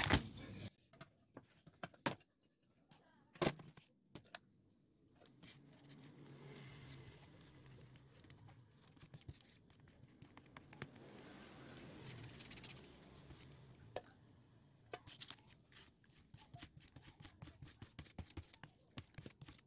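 Faint brushing and scraping of a glue brush spreading glue over leather collar pieces, with scattered small clicks and taps.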